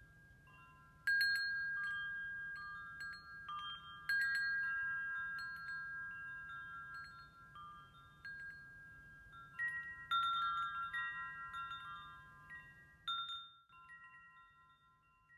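Wind chimes ringing: clusters of clear, high metal tones sound every few seconds, each left to ring out and overlap the next. They are loudest about a second in, about four seconds in and about ten seconds in.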